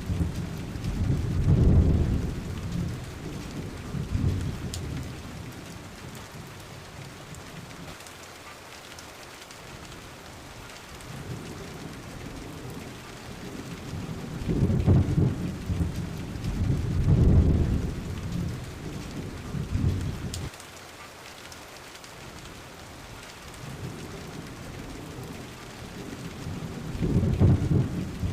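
Steady rain falling, with rolling thunder: a long deep rumble at the start, another through the middle, and a third building at the end.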